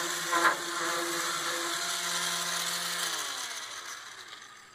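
Ryobi One+ P400 18-volt cordless corner sander running with its pad against a wooden board: a steady motor hum with a scratchy sanding sound and a brief louder scrape about half a second in. About three seconds in it is switched off, and its pitch falls as the motor winds down to a stop.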